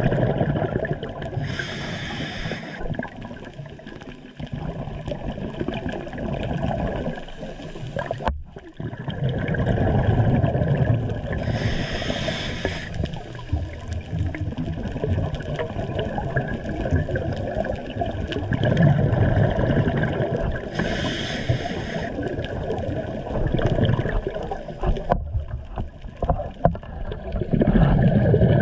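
Scuba diver breathing through a regulator underwater: three short hisses of inhalation about nine or ten seconds apart, each followed by a long rumbling, gurgling rush of exhaled bubbles.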